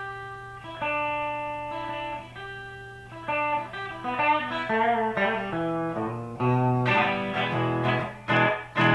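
Electric guitar with its bridge Lace Alumitone humbucker coil-split to single-coil sound, playing a slow single-note melody, then quicker runs, then chords from about seven seconds in, with short choppy stabs near the end.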